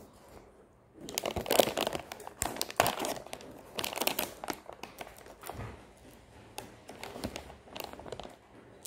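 Packaging crinkling and tearing in several loud rustling bursts for a few seconds, then lighter crinkles: a present being unwrapped.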